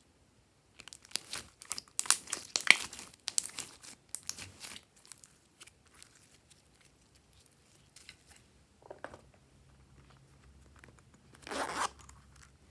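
Glossy slime being squished and stretched by hand: a dense run of quick clicks and pops starting about a second in and lasting a few seconds, then scattered pops, with one louder burst near the end.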